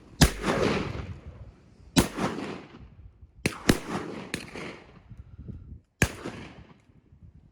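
Six shotgun shots over about six seconds, each with a trailing echo; two come close together about three and a half seconds in.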